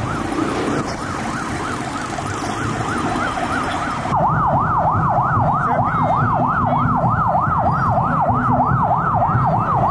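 Ambulance siren yelping, a fast rise-and-fall wail about three times a second. It is fainter at first and much louder from about four seconds in.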